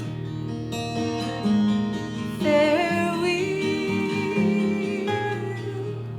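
Acoustic guitar accompaniment of a slow Scottish folk song, chords changing every second or so. A held melody note with a slow waver comes in about two and a half seconds in and fades out about five seconds in.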